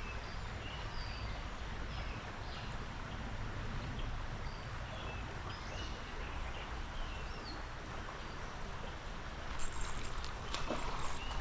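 Steady rush of a creek's flowing water, with small birds chirping on and off. Near the end a run of sharp clicks and rustling sounds close by.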